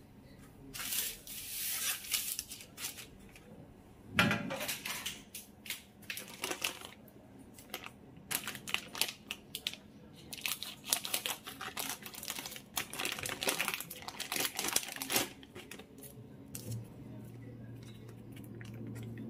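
Baking paper and plastic packaging crinkling and rustling as they are handled and cut open with scissors, in a run of short scratchy noises that die down after about fifteen seconds. A faint low hum comes in near the end.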